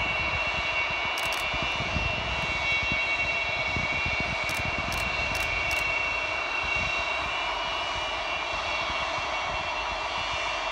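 Antonov An-225's six turbofan engines running at high power as the aircraft begins its take-off roll: a steady rushing noise with a high, even whine over an uneven low rumble.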